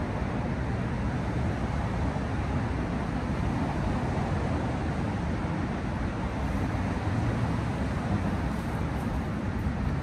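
Steady rumble of distant road traffic.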